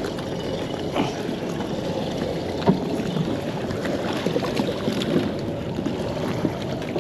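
Choppy water lapping and splashing against a kayak hull, with wind on the microphone and a few sharp knocks, the loudest a bit under halfway through.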